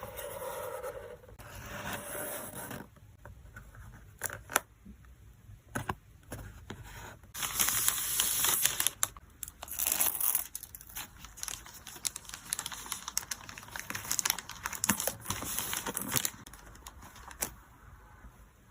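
Photocard packing materials being handled: plastic and paper crinkling and rustling in spells, with tearing sounds and scattered sharp taps and clicks. The longest and loudest rustle comes about halfway through.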